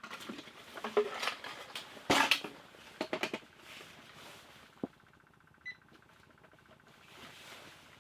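Gear being handled at close range: scattered knocks, clicks and rustling, then a single short electronic beep about six seconds in.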